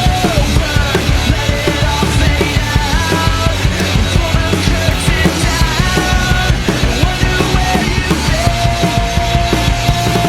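Pop-punk rock song with a drum kit played along to it: a steady, driving beat under a held, sliding melody line.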